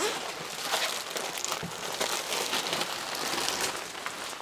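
Vacuum-packed foam mattress inflating out of its cut plastic wrapping: a steady, dense crackling and crinkling of the plastic as the foam expands and draws in air.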